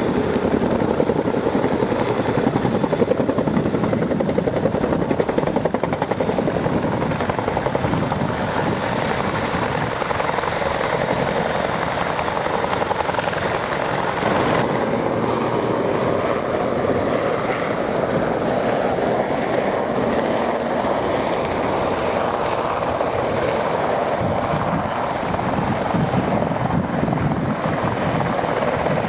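Helicopter flying, a loud steady rotor and engine noise with no break. About halfway through, the sound shifts abruptly, as at an edit.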